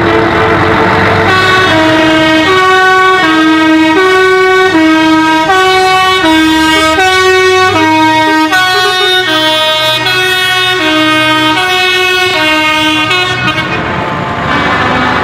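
Truck's musical air horn: a held two-tone horn chord, then from about a second in a melody of short notes about half a second each, stepping up and down, until shortly before the end. Truck engines run underneath as the lit trucks pass.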